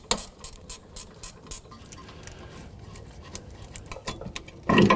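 Light metallic clicks and clinks of a hand tool and a rear brake caliper being unbolted and lifted off, irregular and quick at first, sparser in the middle, with a louder knock near the end.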